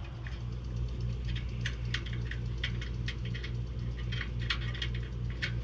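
Small metal hardware (bolts and parts) clinking and rattling as it is handled: a run of irregular light clicks. A steady low hum runs underneath.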